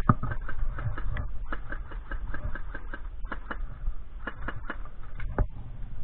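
Airsoft shooting: sharp, irregular clicking snaps of shots and BB hits, several a second for about three seconds and then more spread out, over a low rumble.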